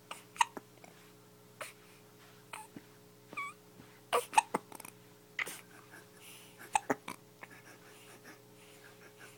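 Newborn baby hiccupping, a string of about a dozen short, sharp hics at uneven intervals, with a brief squeak in among them.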